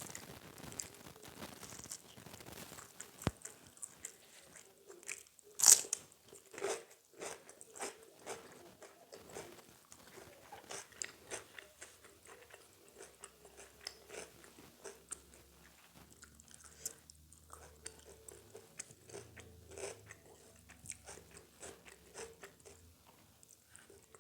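Close-miked eating: a loud crisp bite into crunchy food about six seconds in, then steady chewing with many small crunches.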